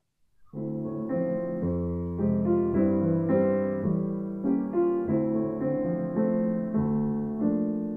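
Piano playing a short, slow interlude of chords. It comes in about half a second in and gradually fades toward the end.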